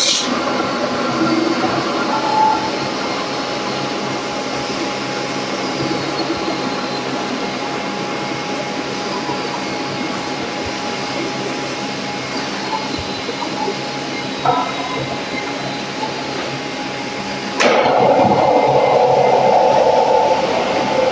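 Steady mechanical running noise with a few faint steady tones. About three-quarters of the way through it switches suddenly to a louder, denser hum.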